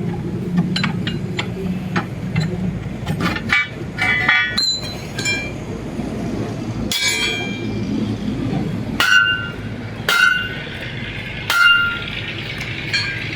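Metal clinking, then three hard ringing metal strikes about a second apart near the end, over a steady low hum: steel tools working on a tyre and rim.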